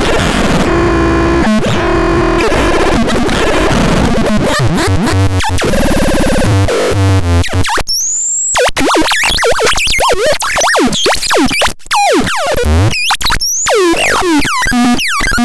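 Loud electronic synthesizer sounds: dense layered tones for the first half, then, about eight seconds in, a string of quick sliding pitch sweeps and broken chirps.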